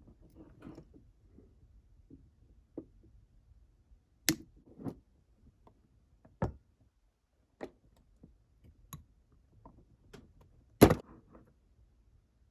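Scattered sharp clicks and knocks of a model locomotive and small hand tools being handled on a wooden desk, about half a dozen clear ones with the loudest knock near the end.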